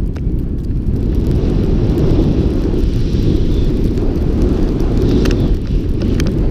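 Wind buffeting a worn action camera's microphone during a snowboard run through powder, a steady low rumble, with the hiss of the board sliding over snow. A couple of light ticks near the end.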